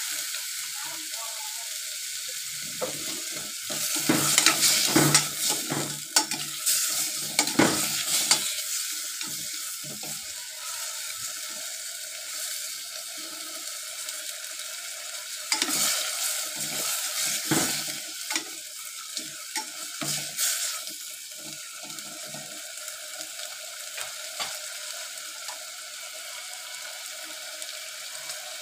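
Chicken pieces sizzling in a stainless steel pot. A metal spatula scrapes and clatters against the pot as the chicken is stirred, in two spells: about three seconds in and again about fifteen seconds in.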